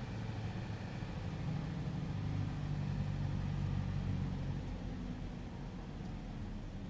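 Truck's diesel engine heard from inside the cab, running at low revs while creeping forward in slow traffic; its low hum strengthens for a few seconds, then eases off.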